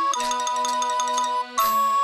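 Background music: a bright, chiming melody of bell-like notes over a low held bass note, the chord changing about one and a half seconds in.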